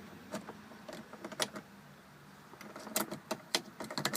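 Scattered light metallic clicks and taps of a key and rebuilt ignition lock cylinder being handled and lined up with the slot in a Toyota Camry's steering column, with a quick run of clicks near the end, over a faint steady hum.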